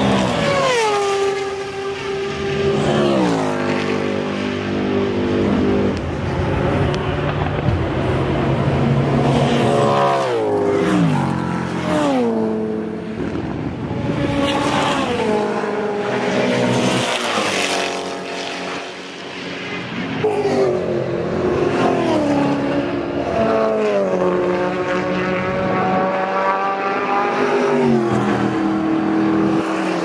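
Several racing cars passing one after another at speed, their engines' pitch dropping as each one goes by. The passes overlap, with a brief lull a little before the middle.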